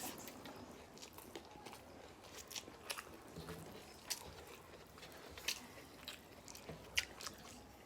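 A person chewing and biting food close to the microphone: faint, irregular mouth clicks and small crunches.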